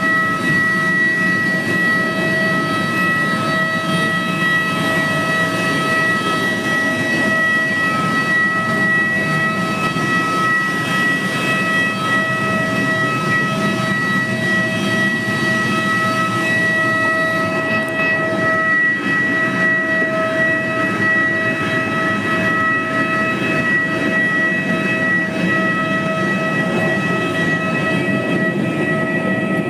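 Jet airliner noise as heard in the cabin: a steady low rush with a high whine held on one pitch, which the uploader asks may be an abnormal sound.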